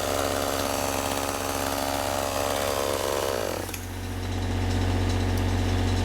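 Chainsaw running at high revs, then the throttle is let off about three and a half seconds in and the pitch drops to a steady idle.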